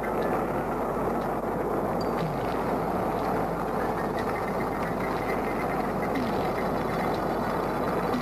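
A steady, dense roaring rumble of noise with no clear pitch, a sound effect laid under the film.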